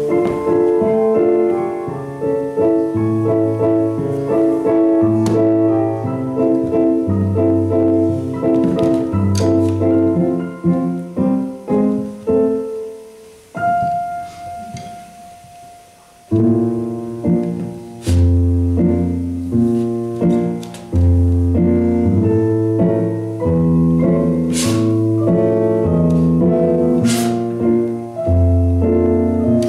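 Piano music with a quick run of notes that stops a little before halfway, leaving one held note fading for a couple of seconds, then starts again with a heavier bass line. A few sharp knocks sound over the music.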